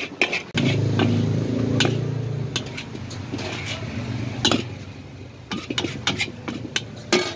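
Metal spatula scraping and knocking against a steel wok while fried rice and noodles are stir-fried, in sharp irregular clacks. A motor vehicle's engine passes close by, coming in about half a second in, loudest around a second and then fading.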